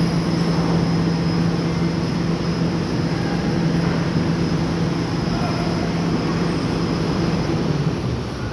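Diesel engine of a large tracked excavator running with a steady low hum under load as the machine moves on its tracks; the hum drops away near the end.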